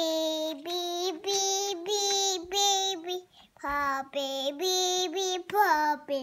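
A toddler singing a simple tune in a high voice, a string of held notes split by a short pause about three seconds in.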